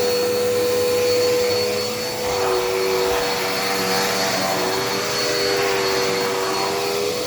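Dirt Devil Endura Reach vacuum cleaner running steadily with a high motor whine; a second, slightly lower tone dips a little twice as the vacuum is worked over the floor.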